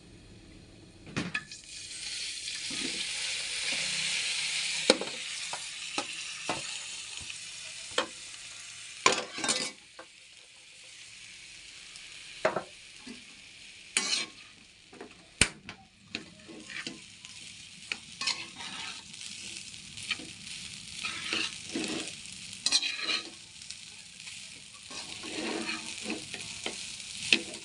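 Rice frying and sizzling in a hot pan while a utensil stirs and tosses it, with repeated knocks and scrapes against the pan. The sizzle swells about a second and a half in and is loudest over the next few seconds.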